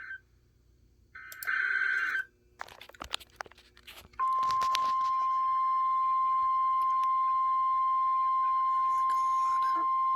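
Emergency Alert System tones: a second-long burst of the buzzy SAME digital data header, a few clicks, then from about four seconds in the steady single-pitch 1050 Hz NOAA Weather Radio warning alarm tone. These signal a tornado emergency.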